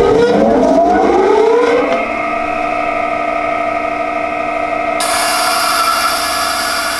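A powerful stationary workshop sanding machine's electric motor running up to speed with a rising whine, then running steadily. About five seconds in, a piece of wood is pressed against the abrasive and a loud sanding hiss joins the motor hum.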